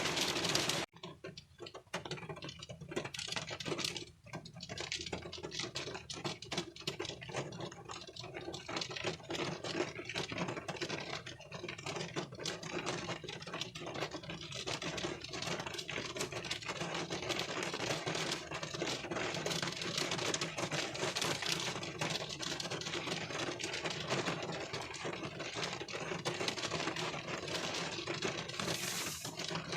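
Raindrops pattering on a car windshield, heard from inside the car as a dense, irregular ticking. The sound cuts out sharply about a second in, then returns and builds back to a steady patter.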